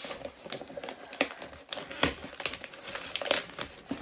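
Gift wrapping paper crinkling and rustling as a wrapped present is handled and its tape picked at, with scattered sharp crackles.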